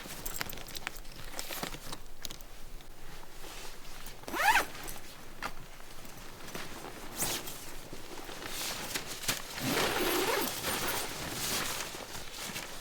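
Zipper on a solo tent being pulled: a quick, loud pull about four and a half seconds in and a longer pull around ten seconds, amid short scrapes and knocks of handling.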